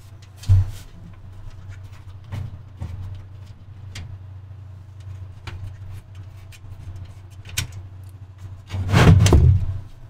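Computer case being handled as its side panel is pulled off: a sharp thump about half a second in, scattered clicks and knocks, and a louder scraping clatter near the end as the case is shifted on the table.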